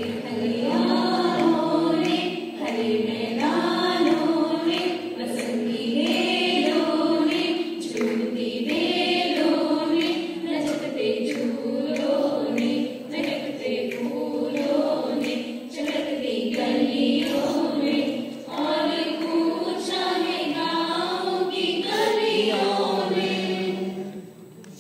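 A group of women singing together as a chorus, a sustained choral song that stops abruptly near the end.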